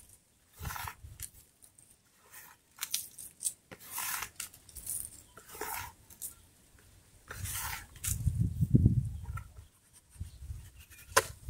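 Dry cow manure mixed with wood ash being scooped by hand from a plastic basin and flung onto dry soil: a series of short, dry swishing scatters, roughly one a second. A louder low rumble comes about eight seconds in.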